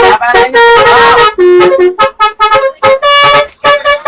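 Basuri telolet bus horn, a multi-trumpet electric air horn, playing a quick melody of short, loud honked notes that change pitch, a few of them gliding.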